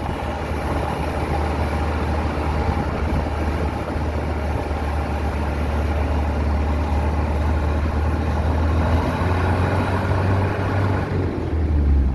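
Motor vehicle engine running with a steady low drone; the engine note shifts near the end.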